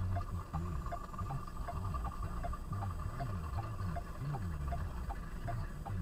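A car's indicator relay ticking steadily, about two to three clicks a second, over a low rumble inside the car's cabin.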